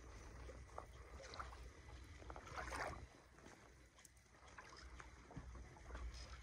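Faint open-water ambience aboard a sailboat: a low, steady wind rumble with a few soft clicks and rustles, one brief louder rustle about two and a half seconds in.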